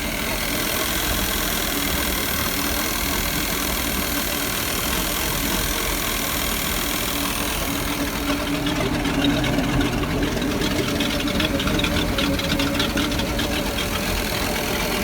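Mercruiser 350 V8 marine engine running with a clicking noise. About eight seconds in the sound changes and a fast run of clicks comes through more plainly for several seconds.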